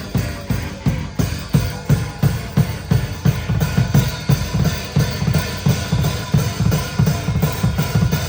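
A band playing live, with the drum kit to the fore: kick and snare hitting a fast, steady beat under the rest of the band.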